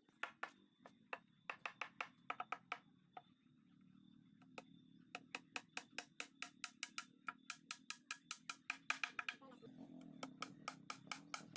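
Background music with a quick clicking, wood-block-like percussion beat over a low steady hum.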